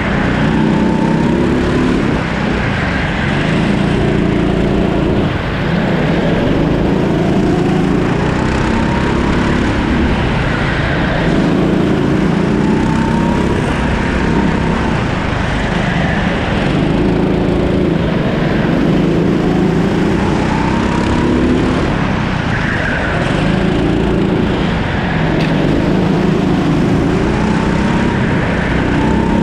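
Rimo rental kart's 13-horsepower engine at racing speed. The revs climb and drop over and over, every two to three seconds, as the kart accelerates down the short straights and lifts off into the corners.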